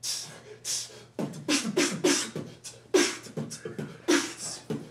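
Vocal beatboxing: a steady beat of mouth-made bass kicks and hissing snare sounds, starting abruptly.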